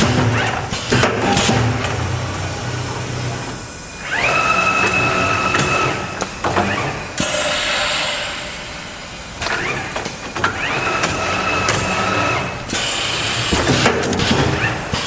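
Wire mesh welding machine at work: repeated clanks and knocks, with a motor whine that rises and then holds steady twice, and a hissing stretch between the two whines.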